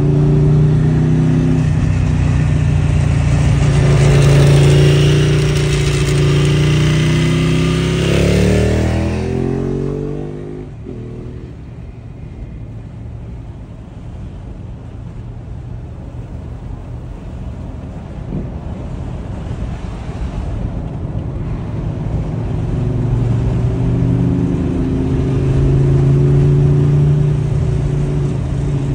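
Ducati 1098R's 1198 cc L-twin through a Termignoni 70 mm racing full exhaust, heard from a following car: a loud, deep twin-cylinder exhaust note that revs up sharply about eight seconds in, then fades quickly, leaving steady road noise inside the car. The exhaust note builds back up in the last few seconds as the bike is close again.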